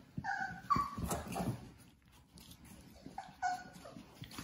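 Labrador Retriever puppies giving short, high-pitched whimpers and yips as they play: a couple near the start, one about a second in, and another couple around three seconds in, with light scuffling between.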